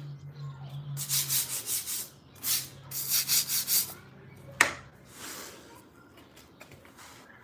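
Small stiff hand brush scrubbing a concrete floor in short bursts of quick back-and-forth strokes, with one sharp knock about four and a half seconds in.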